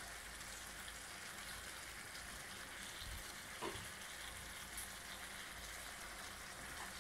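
Faint steady sizzling from a Happycall double-sided pan of chicken, potatoes, peppers and olives in oil on a gas stove, with a light click a little past halfway.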